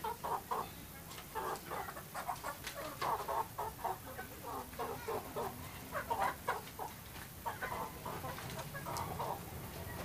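Chickens clucking in a string of short, irregular calls.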